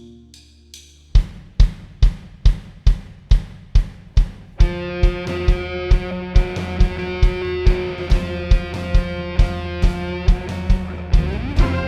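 Worship band starting a song: a steady kick-drum beat, a little over two beats a second, comes in about a second in, and the full band joins with sustained chords partway through while the beat carries on.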